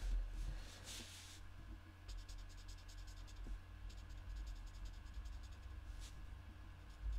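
Stampin' Blends alcohol marker tip scratching lightly on cardstock in several short bouts of colouring strokes.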